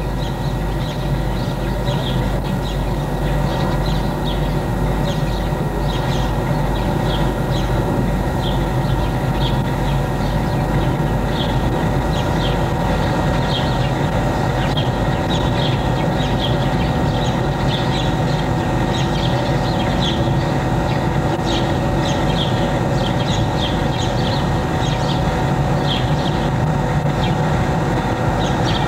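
Super 8 film projector running: a steady mechanical whirr over a low hum, with light irregular ticks throughout.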